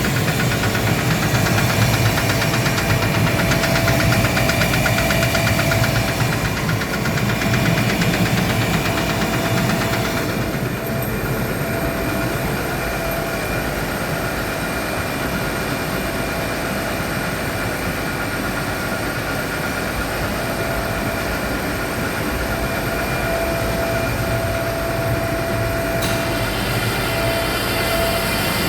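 Gardner Denver rotary screw air compressor running with a rapid, even knocking, the sign of a defective pressure valve. About ten seconds in, the sound gets slightly quieter and the hiss above it fades.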